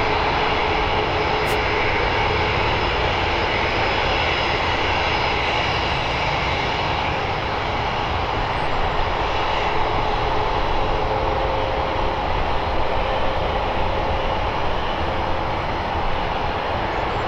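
Boeing 737-800's CFM56-7B turbofan engines running at low taxi power as the jet rolls past close by: a steady engine rush with faint whining tones over it.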